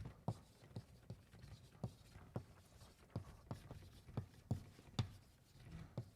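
Chalk writing on a blackboard: a string of short, irregular taps, about two or three a second.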